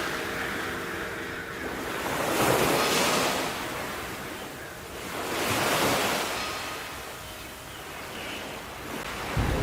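Sea waves washing onto a shore. Two swells of surf rise and fall about three seconds apart.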